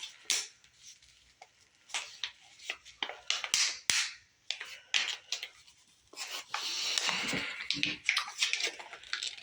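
Flashlight packaging being worked open by hand: irregular clicks, scrapes and rustles, with a longer, denser stretch of rustling in the second half.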